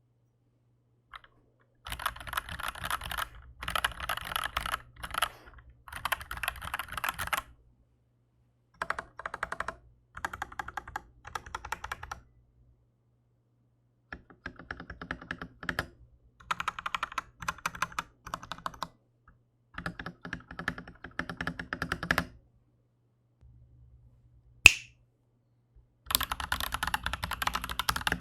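Typing on an Aflion AF82 mechanical keyboard with Aflion Iceberg linear switches in a steel plate: bursts of rapid key clacks a second or two long, broken by short pauses. Near the end, after a gap and one sharp loud click, typing resumes on Aflion Shadow tactile switches.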